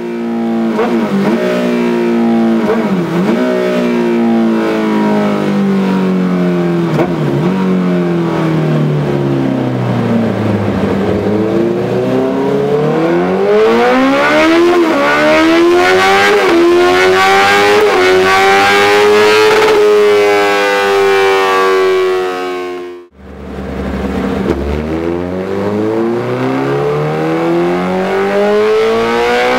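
Honda CBR 650R inline-four engine running on a dyno through a Dominator aftermarket exhaust. The revs fall for the first ten seconds or so. They then climb in steps with short dips, as at gear changes, and hold high. About two-thirds through the sound breaks off abruptly, and the revs start climbing again.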